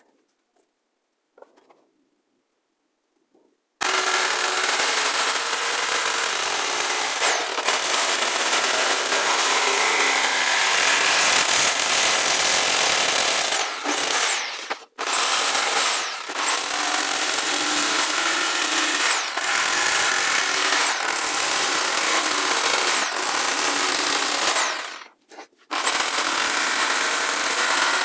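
Electric jigsaw cutting through a flattened PVC pipe. It starts about four seconds in and runs with a high motor whine that dips now and then, stopping briefly twice.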